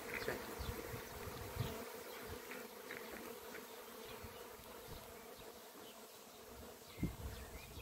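Honeybee swarm buzzing: a steady hum of many bees in flight around a swarm clustered on a pole. A few low thumps near the end.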